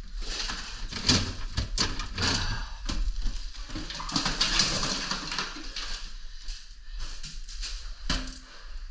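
Irregular clattering, knocking and rustling of containers and debris being handled while a refrigerator is cleaned out, with a longer stretch of hissy scraping or rustling about four to five seconds in.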